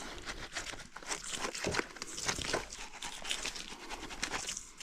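Irregular rustling and crinkling with small crackles from hands scrubbing a lamb's fleece clean.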